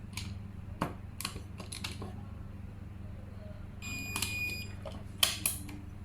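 Electronic keypad lock beeping once, a steady high beep lasting under a second a little before the four-second mark, among several sharp clicks of the lock being handled and operated. A faint steady low hum runs underneath.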